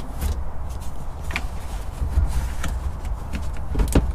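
Plastic rear quarter trim panel of a 3rd-gen Toyota 4Runner being pried and pulled away from the body, giving a few sharp clicks and knocks of plastic and clips, the loudest near the end, over a steady low rumble.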